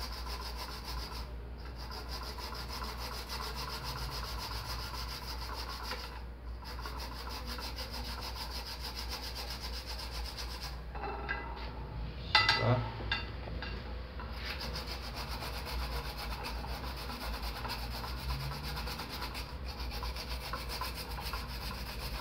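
Raw beetroot being grated on a small plastic hand grater: a steady rasping scrape of strokes with short pauses every few seconds, and a few louder knocks about halfway through.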